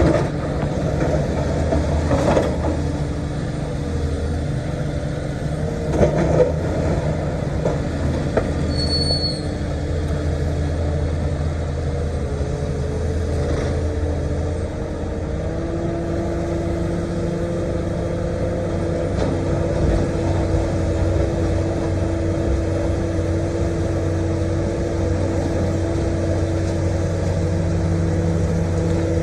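Komatsu PC450-8 LC excavator's diesel engine running steadily under hydraulic load, its pitch shifting as it works, with a few knocks in the first several seconds.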